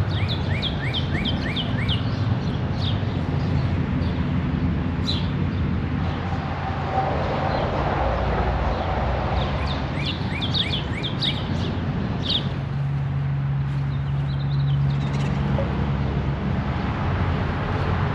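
Small songbirds chirping in quick runs of short downward-sweeping notes, once at the start and again about ten seconds in, over a steady background of wind noise and a low, even rumble like distant city traffic.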